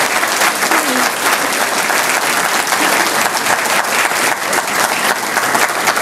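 Audience applauding steadily: dense, continuous clapping from a room full of people.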